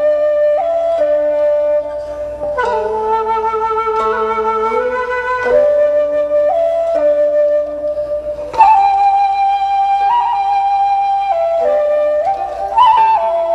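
Background music: a slow flute melody of long held notes stepping between pitches over a lower accompanying line.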